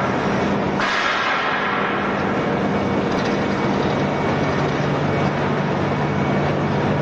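Ring die pellet mill running under load: a loud, steady mechanical noise with a low hum and a dense rattle, brightening briefly about a second in.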